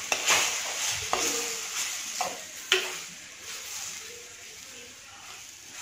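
Steel spoon stirring tomato wedges into fried spice masala in a pot, scraping and clinking against the pot a few times over a soft frying sizzle. The stirring strokes fall in the first three seconds, leaving a fainter sizzle after that.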